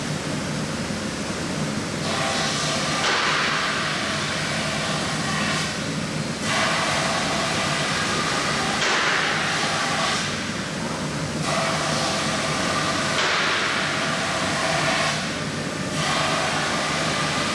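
CNC gantry router with a 5.5 kW spindle machining a mold: a steady hum with a spindle whine, and a hiss of cutting that swells and drops back about every four to five seconds as the tool makes its passes.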